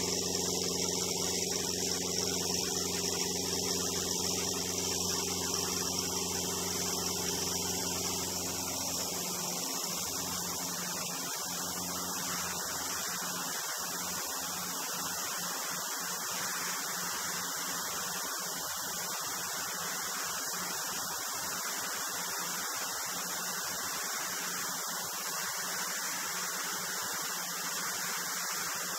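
Piper Comanche PA24-180's four-cylinder Lycoming engine and propeller droning steadily at takeoff power through the takeoff run and climb-out, with a steady hiss of rushing air. The deepest part of the drone thins out about nine seconds in.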